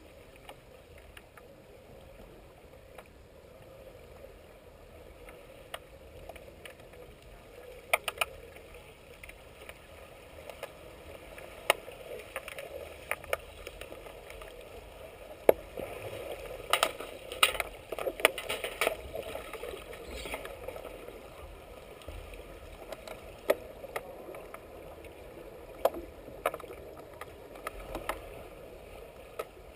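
Underwater hockey heard underwater: a steady muffled water hiss with scattered sharp clacks of sticks hitting the puck and the tiled pool floor, busiest in the middle as players tussle for the puck.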